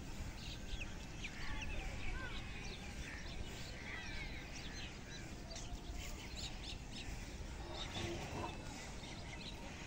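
Many small birds chirping and calling together in quick, scattered short notes, over a steady low rumble.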